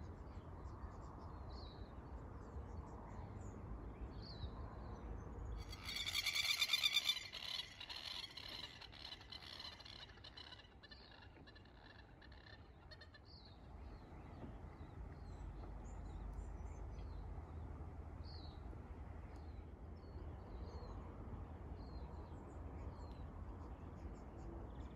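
Quiet outdoor ambience: scattered faint bird chirps over a low rumble, with a louder, rapidly pulsing animal call about six seconds in that lasts under two seconds.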